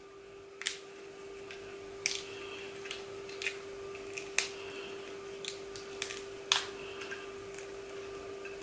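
Raw shrimp shell cracking and peeling away under the fingers: scattered sharp clicks and crackles every second or so, over a faint steady hum.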